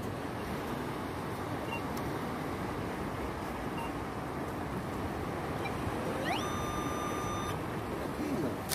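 Steady wash of surf and wind noise, and about six seconds in a metal detector gives one tone that rises quickly and then holds for about a second, signalling a metal target under the coil.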